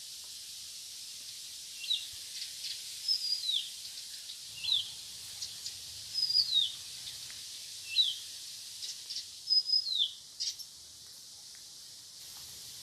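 A songbird calling: short, high notes that slide downward, about six of them a second or two apart, some opening with a brief level note. A steady high outdoor hiss runs underneath.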